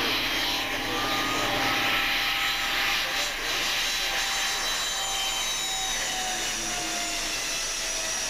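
Twin turboprop engines of a Dornier Do 228 passing low on its landing approach: a steady rushing engine noise with a thin whine that slowly falls in pitch as the aircraft goes by.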